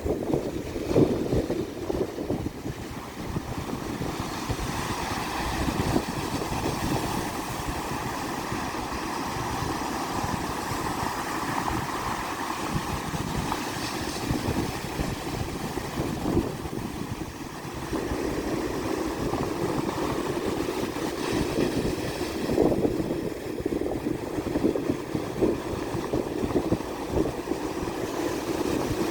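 Black Sea waves washing onto the shore, a continuous rushing surf that swells and eases.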